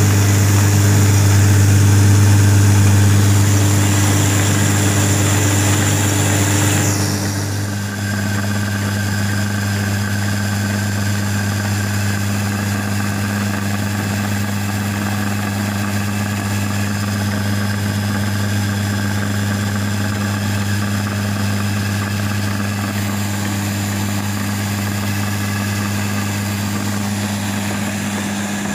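Atta chakki stone flour mill running steadily while wheat grain is fed into its grinding stones: a constant machine hum with a strong low drone. The tone shifts slightly about seven seconds in, then holds steady.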